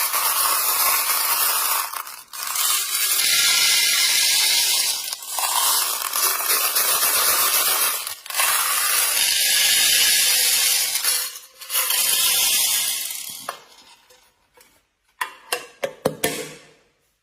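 Spraying water hissing steadily in four long stretches with brief breaks, then stopping. A few light clicks and clinks follow near the end.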